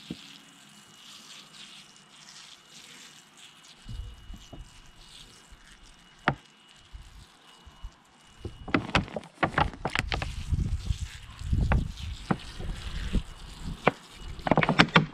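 Water sprinkling from a plastic bottle's rose cap onto potting compost in a pot, a faint steady patter. In the second half it is joined by louder irregular knocks and crackles.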